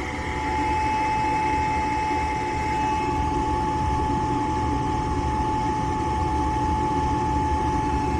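Gas furnace motor spinning up and then running steadily with a constant whine over a low rumble, the furnace going through its start-up cycle after being restarted.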